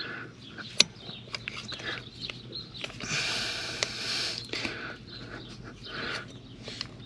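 Small metal parts being worked onto a riding mower's wheel axle by hand: scattered sharp clicks and taps of the washer and retaining clip, with a longer scraping or rustling sound about three seconds in.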